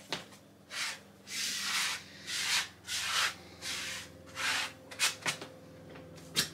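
A coin scraping the latex coating off a scratch card in short, repeated strokes, about two a second, some strokes longer than others.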